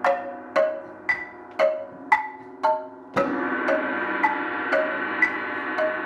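Contemporary percussion trio playing a steady pulse of mallet strokes on pitched keyboard percussion, about two ringing notes a second. About three seconds in, a sustained ringing wash enters beneath the strokes and continues.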